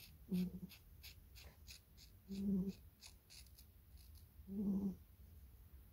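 Small scissors snipping a puppy's fur, quick crisp snips about three or four a second that stop about four seconds in. Over them, the puppy lying on the lap makes a short low groan three times, about two seconds apart.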